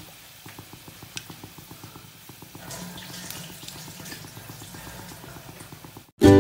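Whole spices frying in hot mustard oil in a wok: a soft, steady crackle of many small pops. Music starts abruptly near the end.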